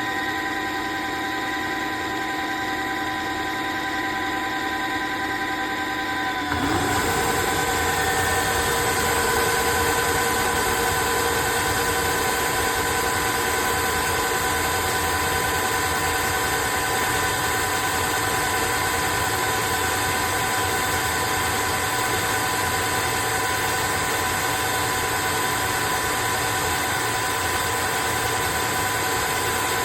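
Cordless wet-dry floor vacuum's motor running with a steady whine; about six and a half seconds in it rises in pitch and gets louder, then runs steady at the higher speed.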